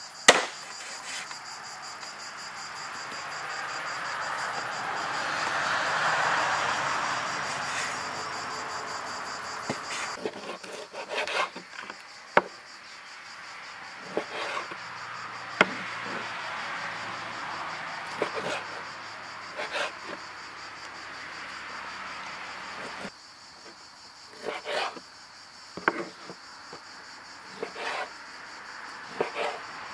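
Large knife cutting raw lamb into chunks on a wooden cutting board: one heavy chop just after the start, then irregular sharp knocks of the blade striking the board every second or two. Insects chirr steadily behind.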